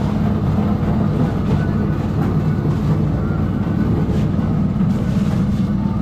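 Boat engine running steadily with a low, even drone.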